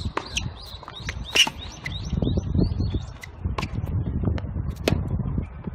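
Tennis rally: sharp ball strikes and bounces about once a second, mixed with short high chirping squeaks, over a low rumble.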